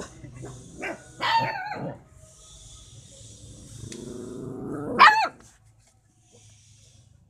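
A frightened puppy barking at a stranger: a few short high barks about a second in, then a low growl that rises into one loud bark about five seconds in.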